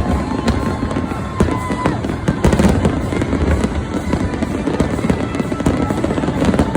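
Fireworks finale barrage: a dense, continuous run of booming shell bursts and crackling reports with no gaps, with music playing underneath.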